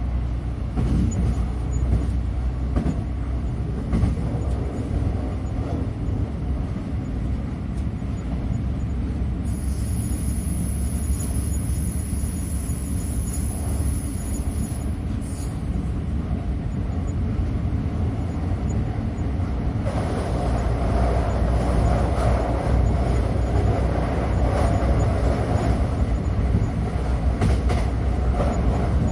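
Inside a moving train carriage: a steady low rumble of the train running on the rails, with occasional faint clicks and knocks. A faint high whine sounds for a few seconds in the middle, and about twenty seconds in the rumble grows louder and harsher.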